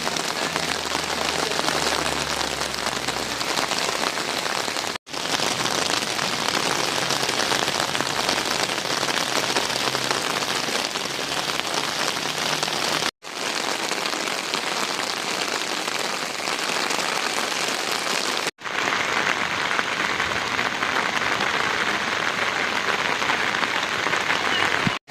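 Steady rushing noise of water, cutting out for an instant three times where the footage is cut.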